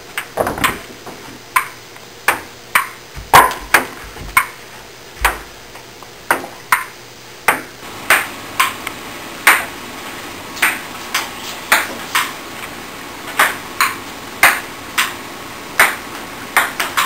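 Ping-pong ball being hit back and forth in a rally, a sharp click from each paddle stroke and table bounce, roughly one to two a second. A few dull low thuds sound in the first half.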